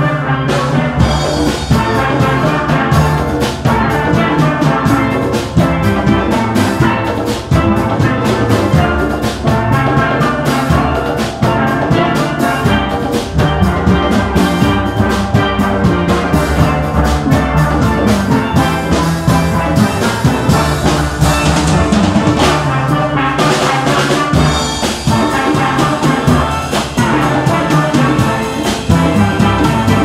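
Steel band playing live: steelpans struck with rubber-tipped mallets carry the tune and chords in quick, rhythmic strikes, with bass pans sounding underneath.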